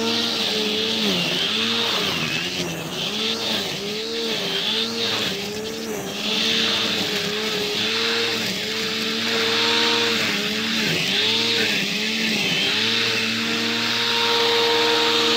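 Electric angle grinder rigged as a grass trimmer with a rope cutting head, running at speed in long grass. Its whine dips in pitch again and again as the rope bites into the grass, then holds steady near the end.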